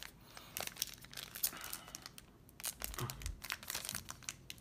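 Packaging crinkling and crackling in irregular bursts as fingers pick at a small packet from a screen-protector kit, trying to open it.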